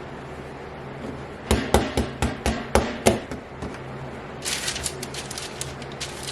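Kitchen work: about seven sharp knocks in quick succession, then a short run of lighter clatter.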